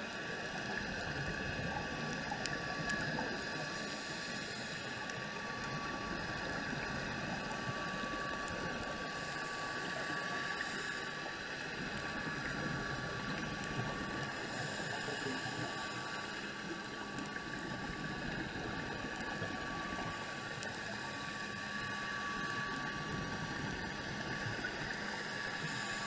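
Underwater ambience as picked up by an action camera in its waterproof housing: a steady, muffled noise with a fixed hum, gently swelling and easing every few seconds, with a few faint ticks.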